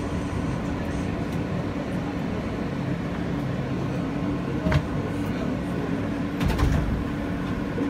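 New York City subway J train running along an elevated track: a steady rumble under a held low hum, with a sharp clack about five seconds in and another clattering clack a little later.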